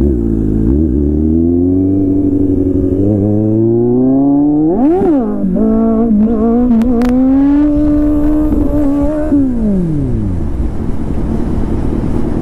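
Kawasaki Z800's inline-four engine pulling away under throttle: its pitch climbs steadily, rises sharply to a brief peak about five seconds in, holds fairly steady, then falls as the throttle is rolled off near the end. Wind rushes over the microphone throughout.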